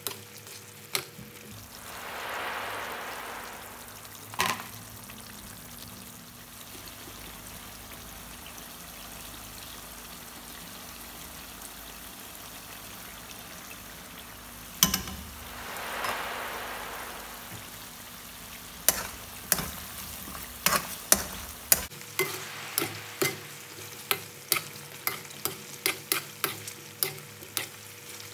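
Metal spoon stirring a chicken curry simmering in coconut milk sauce in a metal pan: a steady low sizzle under sharp clicks and scrapes of the spoon against the pan, which come quickly and often in the last third.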